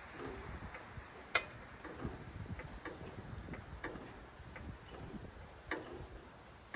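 Light metal clicks and knocks from the jacking gear under a heavy-duty truck, about two a second, with one sharp click about one and a half seconds in.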